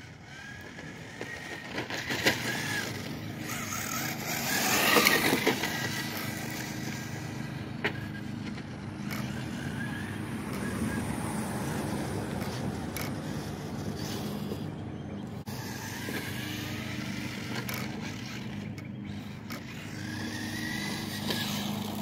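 Kyosho Fazer MK2 radio-controlled car's electric motor whining, rising and falling in pitch as the car speeds up and slows, over its tyres on rough asphalt. It is loudest as it passes close about five seconds in.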